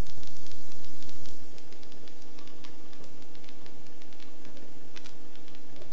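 Steady hum with several held tones and crackling static over a low helicopter drone, heard through the cockpit headset in the gap between loops of the airport's automated weather broadcast on the radio. The level steps down slightly about a second and a half in.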